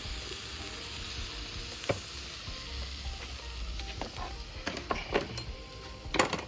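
Jerk chicken sizzling on a grill over the fire, a steady hiss, with a few sharp clicks and knocks of utensils, the loudest just before the end.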